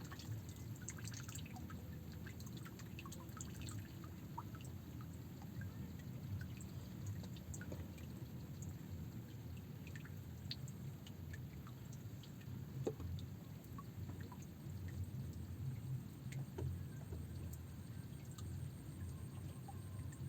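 Water lapping and dripping over a steady low rumble, with scattered faint ticks and one sharper tick near the middle.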